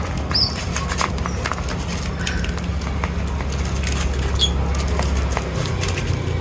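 Birds feeding: scattered sharp clicks and taps, with a few short high chirps, twice, over a steady low rumble.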